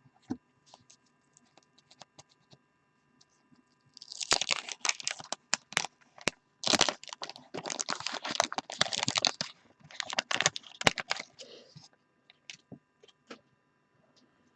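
A 1989-90 Fleer basketball card pack's wax wrapper being torn open and crumpled: a dense run of sharp crinkling and crackling lasting about seven seconds, with a few soft clicks of cards being handled before and after.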